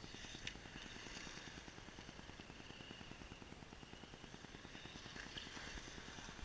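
Faint, steady whine of a Traxxas Slash radio-controlled truck's electric motor running at a distance.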